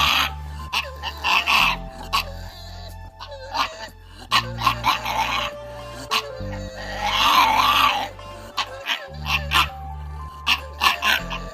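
A dog barking and yipping in short calls over background music with a steady bass beat.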